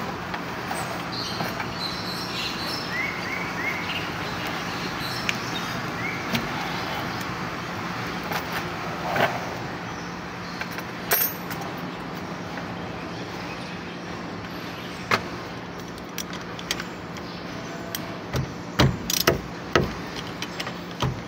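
Metal clinks and knocks of a wrench working on a diesel engine's fuel filter assembly, scattered at first, then several sharp ones in quick succession near the end, over a steady low background hum.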